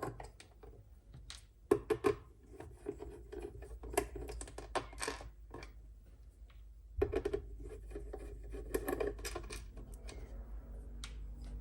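Screwdriver working the bottom screws out of the plastic case of an Apple 3.5-inch 800K external disk drive: irregular scratching and clicking of the bit in the screw heads, with sharper taps and handling noise as the drive is moved.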